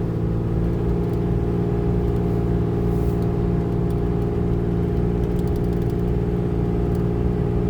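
4x4 pickup truck's engine and drivetrain running at a steady speed, a constant drone heard from inside the cab while driving.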